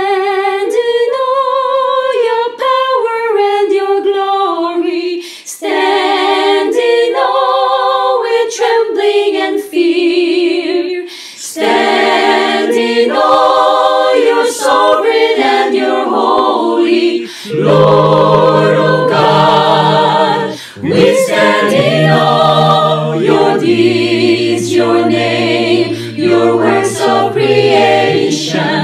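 A cappella worship song sung by a virtual choir, with no instruments. Women's voices carry the melody at first, and lower men's voices join a little past halfway, filling out the harmony.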